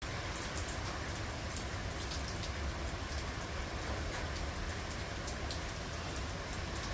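Steady rain falling, a continuous hiss with many separate drops ticking sharply on surfaces, over a low rumble.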